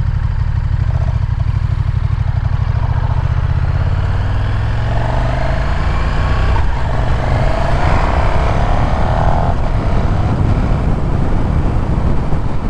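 KTM 1290 Super Duke R's V-twin engine idling, then pulling away about four seconds in and revving up with its pitch climbing as the bike accelerates. Wind noise builds as the speed rises near the end.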